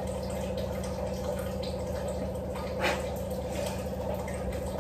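A steady low hum with several fixed pitches, with faint small clicks and taps and a brief rustle about three seconds in.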